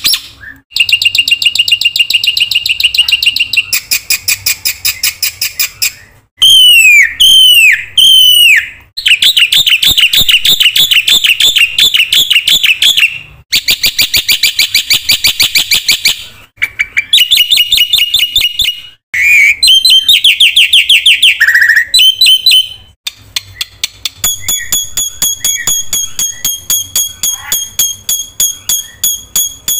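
Black-winged myna (jalak putih) singing a long, varied song. It runs through fast rattling trills and chatters, with three sharp downward-swooping whistles about seven seconds in and high, evenly repeated notes near the end.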